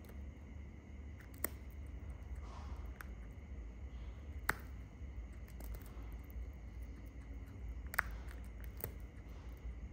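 A shikra feeding on a pigeon carcass, its beak tearing at the flesh: a few sharp clicks and snips, the loudest about four and a half and eight seconds in, over a steady low hum.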